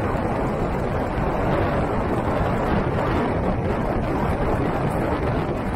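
Steady rushing noise of a vehicle driving along a wet dirt road: tyre and road rumble mixed with wind buffeting the microphone, with no distinct engine note.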